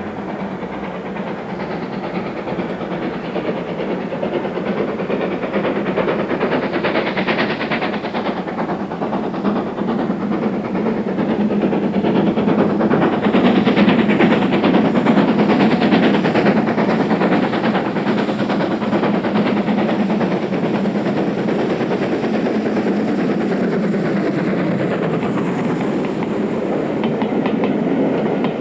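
Great Western Railway Castle class 4-6-0 steam locomotive Nunney Castle working a loaded test train up a steep bank: a rapid steam exhaust beat growing louder as it approaches, loudest about halfway through as it passes close by.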